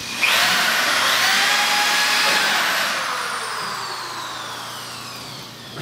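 An electric motor starts abruptly with a quick rise in pitch and runs at full speed with a whine. About two and a half seconds in it is cut off and winds down, its whine falling slowly in pitch and level.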